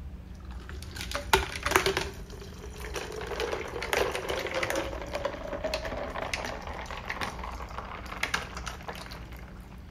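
Walnut agua fresca poured from a pitcher into a glass jar over ice cubes. A few sharp clinks come about a second in, then the pour splashes steadily with a pitch that rises slowly as the jar fills, fading near the end.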